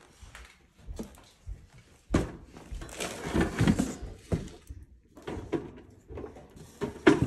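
Irregular knocks, scrapes and rustling as things are handled and moved in a cluttered workshop, with a sharp knock near the end.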